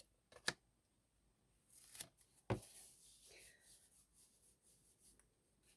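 Tarot cards being handled in near silence: two sharp taps, about half a second in and about two and a half seconds in, with light rustling of cards around them.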